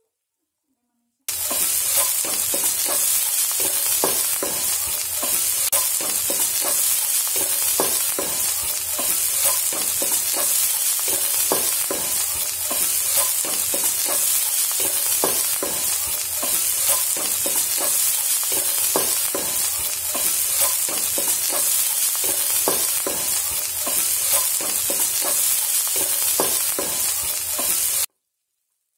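Sliced shallots and garlic sizzling in hot oil in a nonstick wok, with the spatula scraping and knocking against the pan as they are stirred. The sizzle starts suddenly about a second in and cuts off suddenly just before the end.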